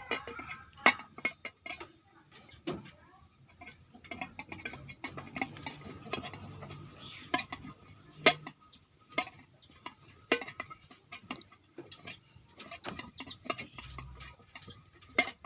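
Irregular sharp clicks and light clinks of small hard objects being handled and tapped, a few of them much louder than the rest.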